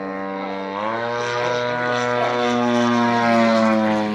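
Propeller airplane engine passing overhead: a steady engine drone that swells about a second in, grows louder toward the end, then eases off as its pitch drops slightly while it goes past.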